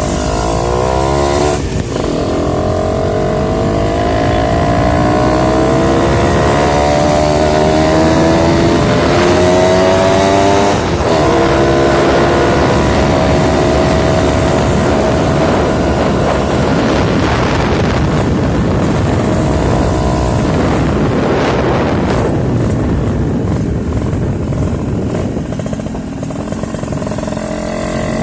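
Suzuki Tornado's 110cc two-stroke single-cylinder engine under way, revving up through the gears with brief breaks at the shifts about two and eleven seconds in, then running at a steadier, slowly easing speed.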